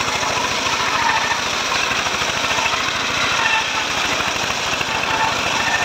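Homemade engine-driven sliding-table circular sawmill ripping along an old teak log: the blade cutting steadily through the wood over the engine's fast, even pulsing.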